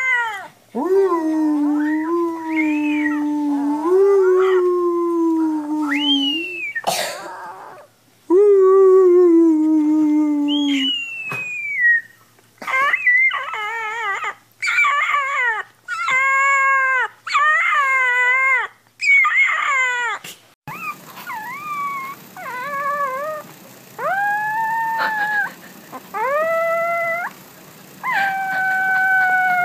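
Puppies howling: long, wavering howls that rise and then fall in pitch, one after another. About two-thirds of the way through, a different puppy takes over with shorter, higher howls.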